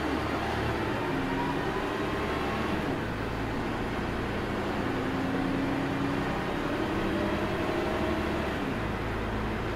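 Ikarus 280 articulated bus with a ZF Ecomat automatic gearbox running under way, a steady engine and drivetrain drone whose low hum shifts about three seconds in and again near the end.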